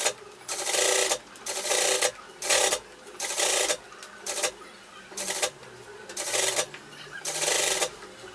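Industrial straight-stitch sewing machine running in short bursts, starting and stopping about nine times while a topstitch is sewn along a seam.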